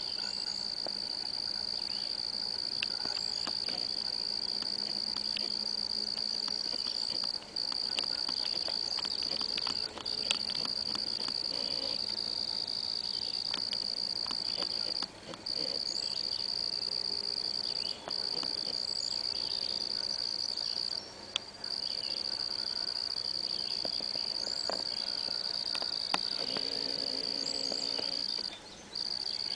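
High, steady insect trill that stops for a moment every few seconds, with faint bird chirps over it.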